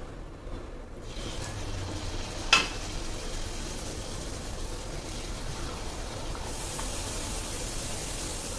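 Pieces of wheat-flour puri dough sizzling as they deep-fry in hot oil in a kadhai. The sizzle starts about a second in and grows brighter later, with one sharp click about two and a half seconds in.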